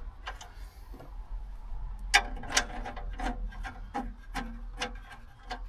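Metal nuts and bolts clinking as the original seat nuts are put onto the swivel base's bolts: a run of sharp, ringing clicks, about two a second, starting about two seconds in.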